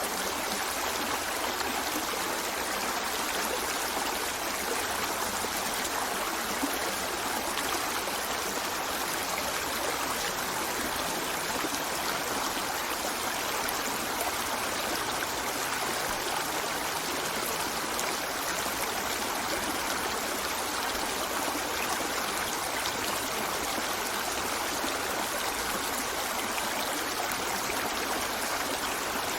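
A river flowing steadily over rocks, an even rushing of water with a light trickle and gurgle.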